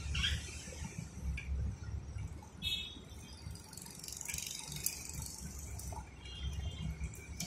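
Faint rustling from an Alexandrine parakeet moving about its metal cage, with two short, high ringing tones about a third of the way in and near the end.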